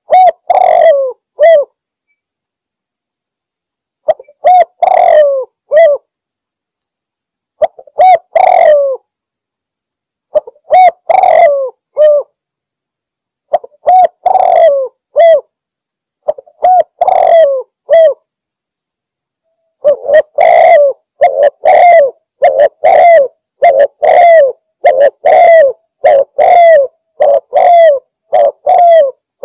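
Male spotted dove (tekukur) cooing, a calling song to challenge rivals: loud phrases of a few coos come about every three seconds, then about two-thirds of the way in they run back to back without pause.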